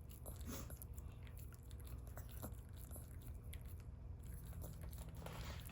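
Faint scattered clicks and small mechanical ticks from a robot dog's joints and feet as it moves. Its hips are freshly repaired, and the joints click lightly rather than grinding.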